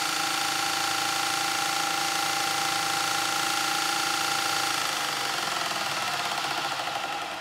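Lagler Hummel 8-inch belt floor sander running at full speed with a steady whine, then winding down about five seconds in, its pitch falling as the motor and drum coast to a stop.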